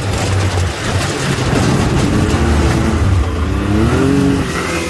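Side-by-side UTV engine running under throttle with a steady low rumble. Its pitch rises and falls a few times in the second half as the driver works the throttle.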